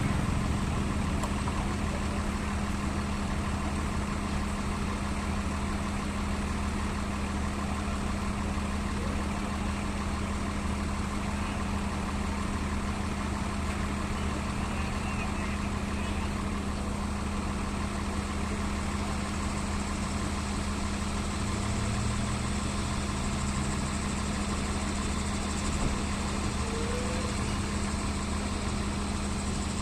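Large intercity bus's diesel engine idling steadily, an even low hum that holds without revving.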